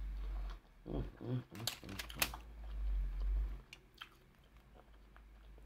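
A person chewing food close to the microphone, with a short hummed "mm" about a second in, a few sharp clicks, and deep rumbles from handling.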